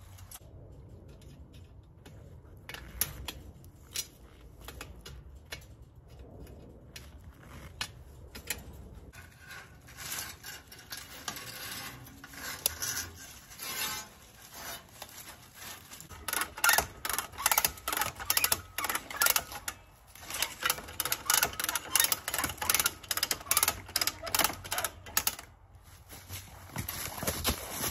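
Page wire fencing being handled and tied to the posts: runs of crisp metallic clicks and rattles from the wire. The clicks are scattered at first and grow dense and loud from about halfway through.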